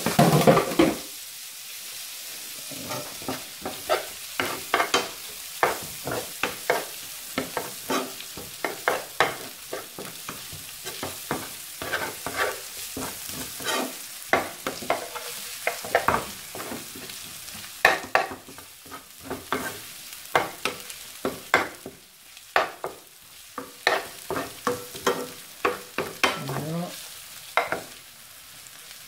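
A large metal spoon scraping and knocking against a non-stick frying pan as curried chicken and onions are stirred, a few strokes a second, over the steady sizzle of frying. A loud clatter comes right at the start.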